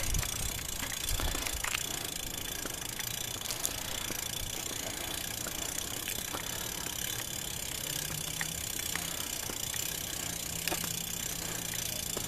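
A vehicle engine idling steadily, its low hum growing stronger about eight seconds in, with a few faint light clicks.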